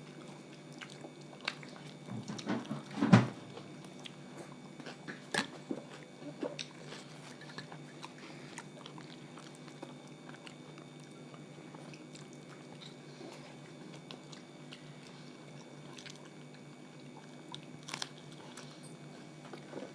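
People chewing and eating a meal of rice, dal, roti and vegetables, with scattered small clicks and knocks; a cluster of louder knocks about three seconds in, and a sharp click near the end.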